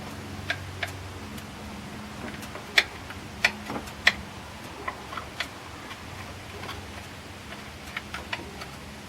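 Hand tools clicking and tapping against engine parts, about a dozen irregular sharp clicks, the loudest three a little past the middle, over a faint steady low hum.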